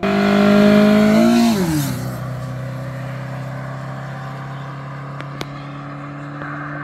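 Honda Accord's F22 four-cylinder engine with an aftermarket intake, loud as the car drives past. Its note falls about a second and a half in and settles into a steadier, quieter drone.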